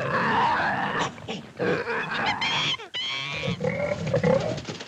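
Sound effect of a panther and a wild boar fighting: harsh growls, snarls and pig-like grunts in quick, broken bursts, with high squeals a little after the midpoint.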